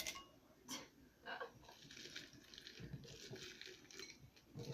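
Small candies dropping into a little glass bowl, clicking against the glass: a few separate clicks at first, then a longer run of light rattling.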